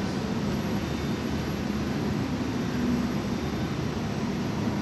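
Airbus A380-861's four Engine Alliance GP7200 turbofans heard at a distance as the airliner touches down: a steady, low jet rumble.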